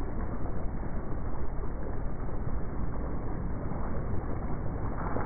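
Steady, muffled rumble of wind buffeting the microphone and water rushing past the hull of a sailing yacht under way in a choppy sea.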